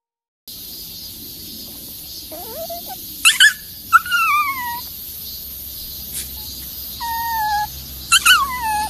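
Small white Pomeranian vocalizing: a short rising whine, then sharp high yips, each followed by a falling, drawn-out howl-like cry. The yips and falling cries come twice, with a steadier cry between them.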